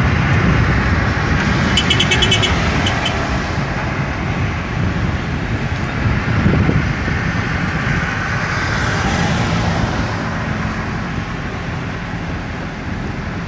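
Road, engine and wind noise heard from a moving car, steady throughout. About two seconds in comes a quick run of sharp clicks, and later a swell of noise rises and fades.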